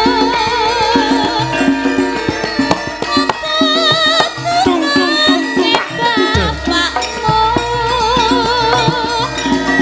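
Javanese gamelan accompanying a sinden, a female singer, who holds long notes with a wide vibrato over sustained metallophone tones and kendhang hand-drum strokes.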